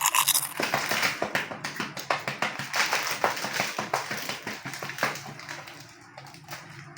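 Crunchy snack pieces poured out of a packet: a dense rattle of many small pieces landing, which thins out over several seconds.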